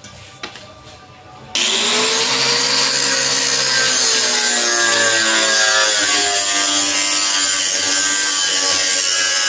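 Angle grinder with a cut-off disc starting abruptly about a second and a half in and cutting through a motorcycle's steel exhaust pipe. A loud, steady grinding with a whine that wavers and sags as the disc bites into the metal.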